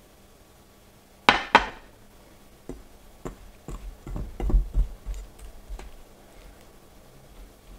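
Knocks and thumps of dough being worked by hand in a bowl on a table: two sharp knocks about a second in, then a run of duller, heavier thumps.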